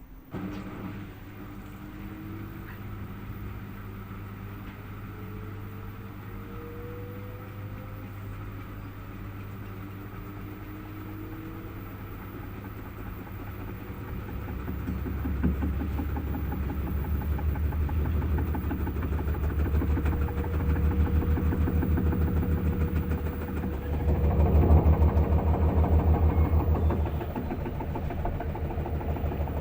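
Washing machine with a faulty drum starting up: a motor whine rises slowly in pitch, then from about halfway the spinning drum adds a louder, pulsing low rumble that peaks near the end. The rumble is the noise of the faulty drum.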